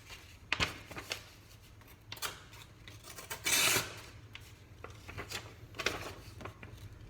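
A steel knife blade scraped against a sharpener in short, irregular strokes, the longest and loudest about halfway through.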